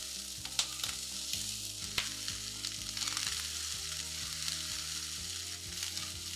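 Rice and vegetables sizzling in a hot nonstick pan as they are stirred and tossed with a wooden spatula, with a few sharp scrapes and clicks of the spatula against the pan.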